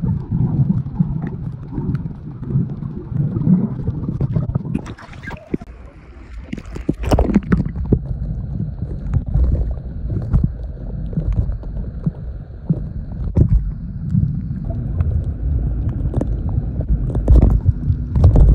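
Muffled underwater noise picked up by a submerged phone's microphone while snorkelling: a low, uneven rumble of moving water with gurgling and scattered clicks. A louder, splashier rush comes about five to seven seconds in.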